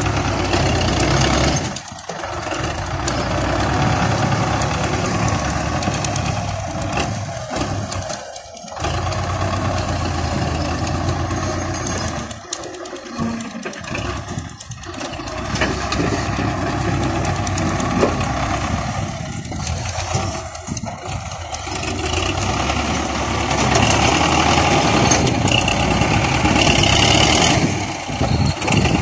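Belarus MTZ-50 tractor's four-cylinder diesel engine running under load as it works a front loader bucket, digging earth and loading a trailer. The engine sound rises and falls, with several brief dips.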